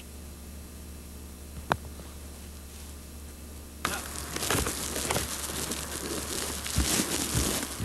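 Steady low electrical hum with one sharp click, then, from about four seconds in, wind buffeting the camera microphone with a rough crackle and scattered pops.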